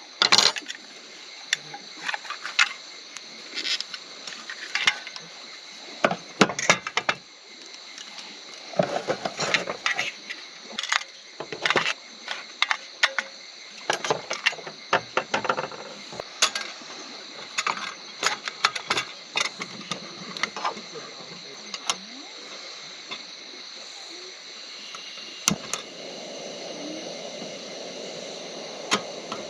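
Scattered light clicks and clatters, like utensils and dishes being handled, over a steady high-pitched night chorus of frogs and insects. A low, steady rushing sound joins near the end.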